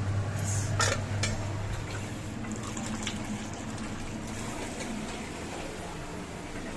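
Water or liquid sounds in a kitchen, with two sharp clinks about a second in.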